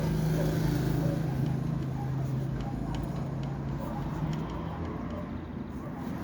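A steady low motor hum that fades away about four seconds in, with a few light clicks.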